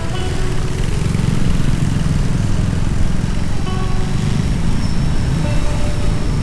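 A motorcycle on the move: a steady low rumble of engine, wind and road noise on the rider's microphone, with faint music.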